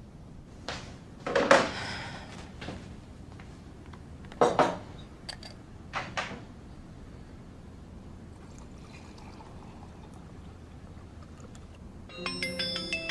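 A few short sharp knocks and clatters, the loudest about a second and a half in, then faint pouring of liquid from a jug into a mug. About a second before the end, a mobile phone starts playing a melodic ringtone.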